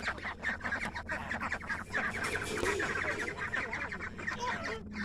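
A flock of domestic ducks quacking, many short calls overlapping in a steady chatter.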